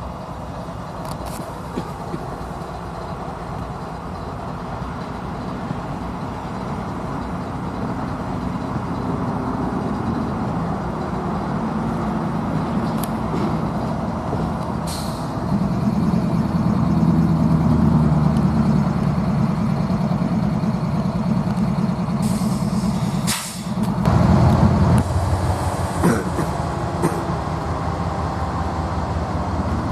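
Diesel freight locomotives idling with a steady low rumble that grows louder about halfway through, with a few brief air hisses. Near the end the sound shifts to the heavier rumble of a second train's locomotive passing close by.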